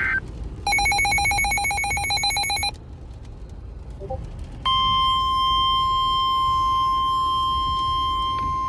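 Emergency Alert System broadcast on NOAA Weather Radio. It opens with the end of a data-burst screech, then about two seconds of rapid pulsing electronic beeps. After a short pause, a loud steady 1050 Hz attention tone starts a little before halfway and holds, announcing an incoming severe weather warning.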